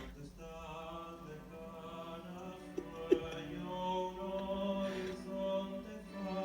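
Music with long, held, chant-like sung tones, and one sharp click about halfway through.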